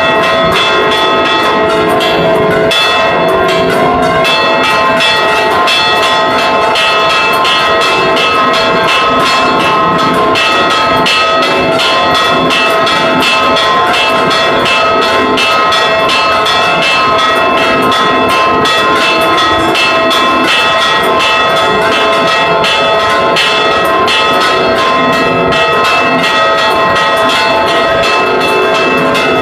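Church tower bells rung by hand with ropes in a fast, continuous repique: rapid strikes tumbling over one another several times a second over the bells' ringing tones, loud and close up inside the belfry.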